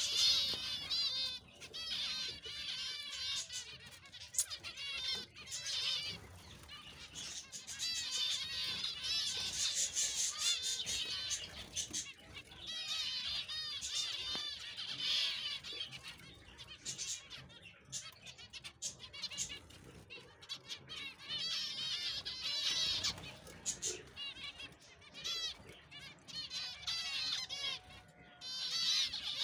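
A colony of small aviary finches chattering: many overlapping high, short chirps and calls, swelling and fading in waves.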